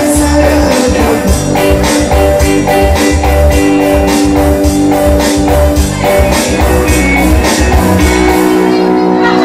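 Band music with a steady beat under sustained chords; the bass and drums drop out about a second before the end.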